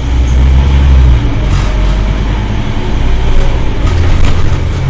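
Scania OmniCity single-deck bus engine running, heard from inside the passenger cabin. Its low drone drops in pitch about a second in and rises again near the end, with a few knocks and rattles.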